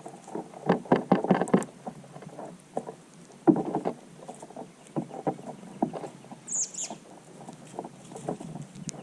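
Irregular soft knocks and rustling, strongest in two clusters near the start and about a third of the way in, with one short high chirp from a bird falling in pitch about two-thirds through.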